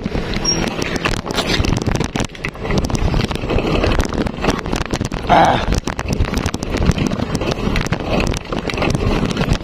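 Wind rumbling on the microphone over the rolling noise of a bicycle slowly climbing a steep road, with scattered knocks and bumps.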